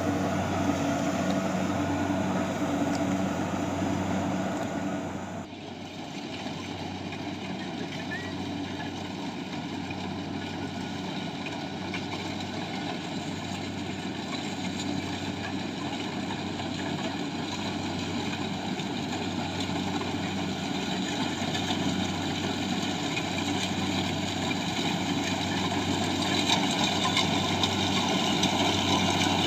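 Engine of a rice combine harvester running steadily. About five seconds in the sound changes abruptly, then grows gradually louder and noisier toward the end.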